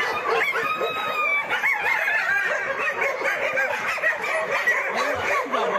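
A dense chorus of many shelter dogs yelping, whining and barking over one another, with no let-up.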